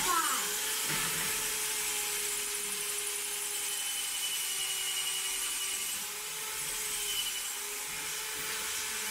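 Handheld electric drill drilling into a balcony wall. It spins up with a rising whine, then runs steadily at one pitch for about nine seconds under a hiss of drilling.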